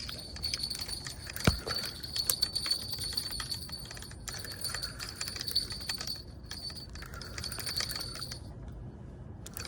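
Small bite bells on a fishing rod jingling irregularly as a fish is on the line. There is one sharper click about a second and a half in, and a steady high-pitched tone underneath.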